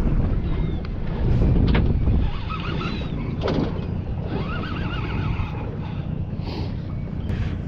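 Wind buffeting the microphone, with gulls giving several wavering cries over the water.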